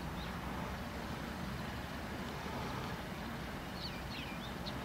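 Rail maintenance motor car's diesel engine running with a steady low rumble as it creeps along the track. A bird chirps a few times near the end.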